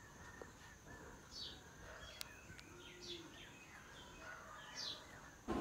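Faint bird chirps: short falling calls, roughly one a second, over a faint steady high tone.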